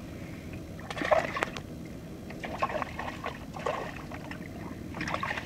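Water splashing and sloshing beside a sea kayak's hull in short, irregular bursts as a bonefish thrashes at the surface alongside, with a couple of sharp knocks about a second in.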